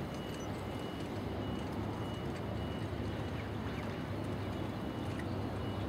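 Steady outdoor background noise with a low rumble and a few faint scattered clicks.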